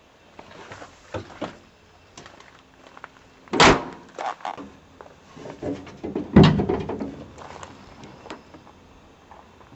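Steel cab door of a 1972 GMC Sierra Grande 2500 pickup being worked as someone gets out: two loud, heavy thunks about three seconds apart, with lighter latch clicks and handling knocks around them.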